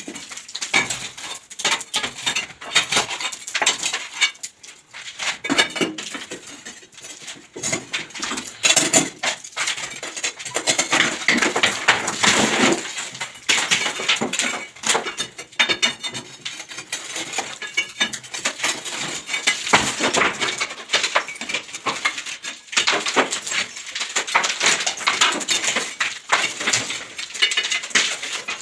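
Tools breaking up a damp-damaged ceiling: a rapid, irregular run of hard clinks and knocks that goes on without pause.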